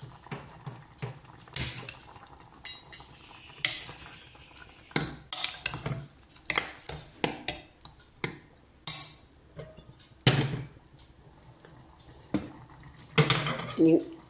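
A steel ladle clinking against a stainless steel pressure-cooker pan as a curry is stirred, then pots clanking as they are shifted about on a gas stove. The clanks are sharp and irregular, several close together and loudest near the end.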